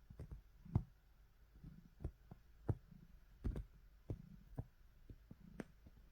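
A cat kneading bedding: soft, irregular clicks and taps from its paws and claws working the fabric, about one or two a second.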